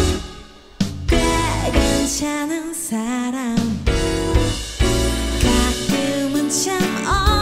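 A woman singing a pop ballad live with a band of drums, bass and guitar. Her voice wavers with vibrato. The music thins out for a moment at the start, then the band comes back in fully just under a second in.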